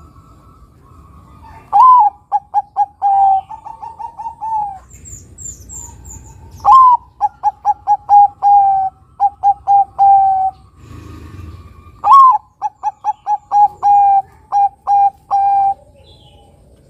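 Bangkok-line zebra dove (perkutut) cooing: three phrases about five seconds apart. Each opens on a higher note that bends down, then runs into a quick string of short staccato coos ending in a longer held note. A small bird chirps faintly, high up, between the first two phrases.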